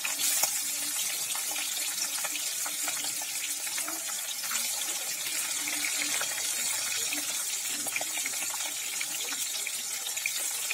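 Whole koi fish (climbing perch) frying in hot mustard oil in a wok: a steady sizzle dotted with small crackles and pops, swelling briefly just after the start as more fish go into the oil.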